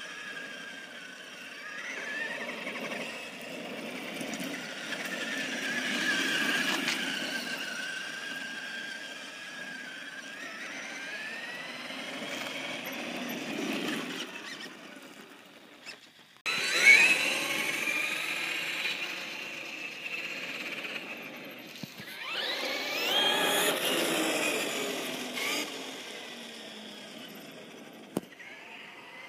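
Traxxas X-Maxx electric RC monster truck's brushless motor and drivetrain whining, the pitch sweeping sharply up each time it accelerates and falling away as it slows, over a steady rush of tyre and gear noise.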